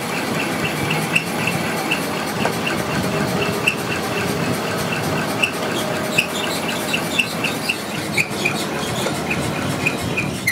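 Steady mechanical running noise with a short high squeak repeating about three to four times a second.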